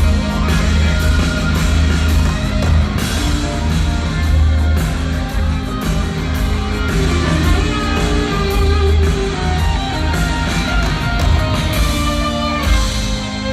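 A live rock band plays loudly, with electric guitars, bass and drums. Near the end the drum hits stop and held chords ring on.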